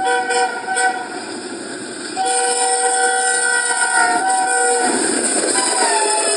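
A locomotive horn sounding a chord over the rush of a moving train: a short blast, then a longer one of about two and a half seconds. Near the end another horn note slides down in pitch.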